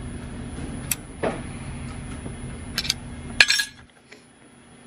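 Hand tools clinking on a rocker arm's adjusting screw and jam nut as the nut is tightened down: a few light, sharp metallic clinks, the loudest about three and a half seconds in, over a low steady hum that drops away right after it.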